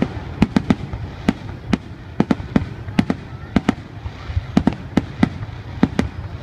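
Aerial fireworks display: shells bursting in an irregular string of sharp bangs, about three a second, over a steady low rumble.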